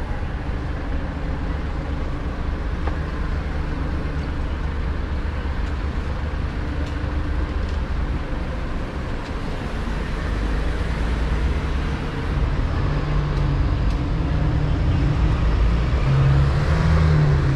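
City street traffic: a steady rumble of passing cars, with a heavy vehicle's engine growing louder over the last few seconds.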